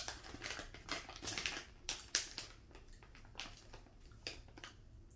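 Crinkling of a jerky bag as fingers rummage inside and pull out a piece: a quick run of short rustles and crackles, thick for the first couple of seconds, then sparser.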